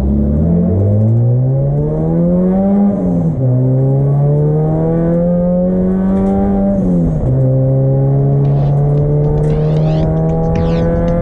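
Turbocharged Honda D16 four-cylinder engine of an EK Civic accelerating hard through the gears: revs climb, then fall sharply at upshifts about three and seven seconds in, and pull up slowly again in the next gear.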